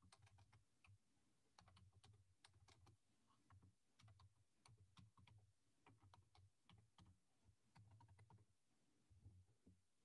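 Faint typing on a computer keyboard: quick, irregular key clicks that stop just before the end.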